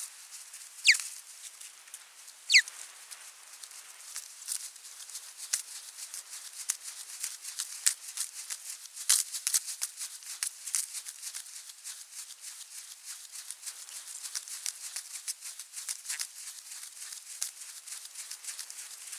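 Irregular clicking and crackling on an osprey nest, the sound of the birds working at a freshly caught pike among the nest sticks, with two short sharp falling bird whistles in the first three seconds.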